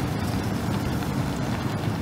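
Chevrolet Silverado's 5.3-litre V8 gasoline engine running steadily, a low, even sound.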